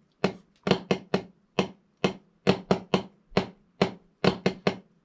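Wooden drumsticks tapping on a drum practice pad, playing a flam-tap-diddle (a doubled flam followed by the rest of a paradiddle). The strokes come in quick clusters of sharp taps at a steady tempo.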